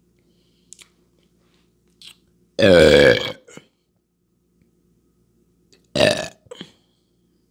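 A woman belching loudly twice: a long, pitched burp about two and a half seconds in, then a shorter one near the end. The burps come from gas after gulping down a large drink.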